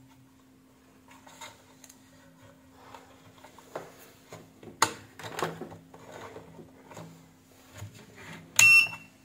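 Clicks and rustling of hands working wires, connectors and a mains plug on an opened electronic weight scale, with one sharp click about five seconds in. Near the end the scale's buzzer gives one loud, short, high beep as it powers on, a sign that the fault from the bad power switch is cured.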